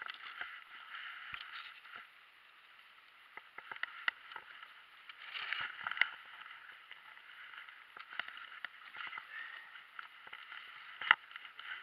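Water lapping and trickling around a plastic kayak, with scattered small knocks and clicks of gear against the hull and a sharper knock near the end.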